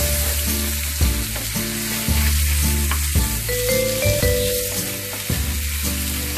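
Chicken pieces sizzling in hot oil in a frying pan while a spatula turns them, with a few light scrapes and taps. Background music runs underneath, its notes changing about once a second.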